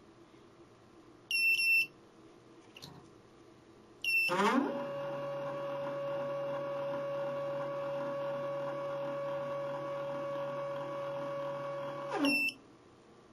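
Electronic controller beeps once, then a stepper motor on the automatic cutting setup starts with a rising whine, runs steadily for about eight seconds and winds down with a falling whine as a second beep sounds. This is one automatic cutting stroke for a stripe on the graduated dial, and the closing beep is the limit sensor's warning.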